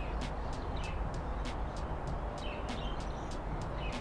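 Steady low outdoor rumble with a run of short, sharp high ticks, several a second, and a few faint bird chirps.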